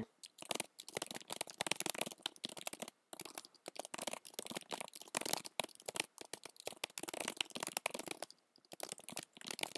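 Typing on a computer keyboard: quick runs of key clicks, with short pauses about three seconds in and near the end.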